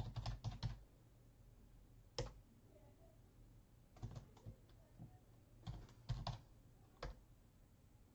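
Computer keyboard typing in short bursts of a few keystrokes, with pauses of a second or two between bursts.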